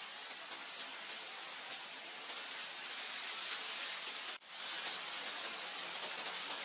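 Steady hiss of wind, an even rushing with no distinct gusts, cutting out for an instant about four seconds in.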